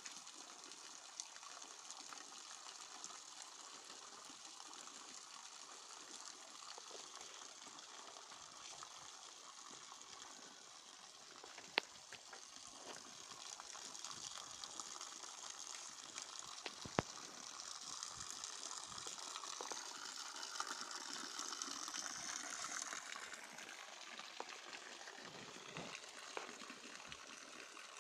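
Water jetting from a pipe and splashing onto gravel, a steady hiss that grows louder from about halfway and eases near the end. Two sharp clicks stand out, one a little before halfway and one a few seconds later.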